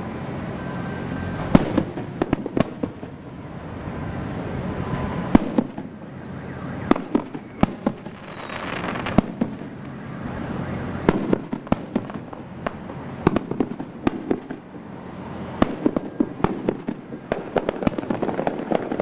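Aerial firework shells bursting: an irregular series of sharp bangs and crackles over a steady wash of noise, coming thicker near the end.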